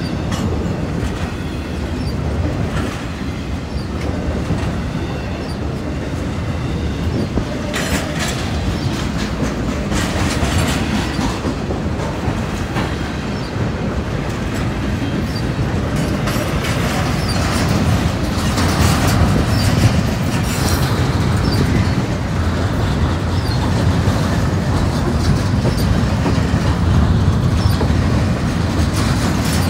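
CSX freight train cars rolling past in a continuous heavy rumble, with repeated clanks as the wheels strike the railroad diamond crossing and faint wheel squeal.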